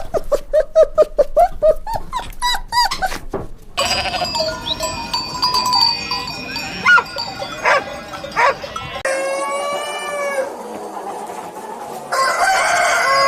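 Farm-animal calls from several cut-together clips: quick repeated pitched calls at first, then a busier stretch of mixed calls, then a long pitched call. The sound changes abruptly about four, nine and twelve seconds in.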